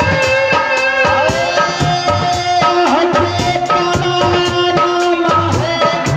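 Live folk music at a naach stage show: steady hand-drum beats under long held melodic notes.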